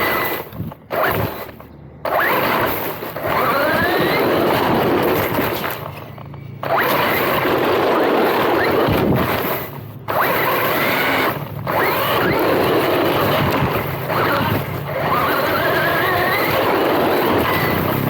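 MJX Hyper Go 16212 1/16 brushless RC car running. Its brushless motor whines and rises in pitch on bursts of throttle over a steady rush of noise. The sound drops away briefly several times, about one, two, six and ten seconds in.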